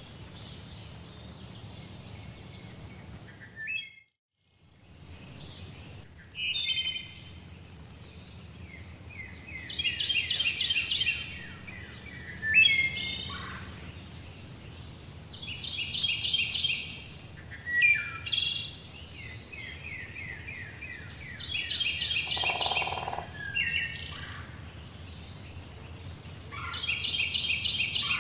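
Songbirds singing: one bird repeats a short, rapid trilled phrase every five or six seconds, with other brief chirps between, over a thin steady high tone and a low hiss. The sound cuts out briefly about four seconds in.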